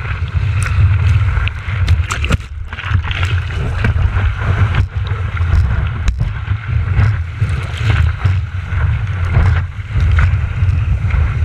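Whitewater rushing under a surfboard riding a breaking wave, with heavy wind rumble on a board-mounted action camera and spray ticking against its housing.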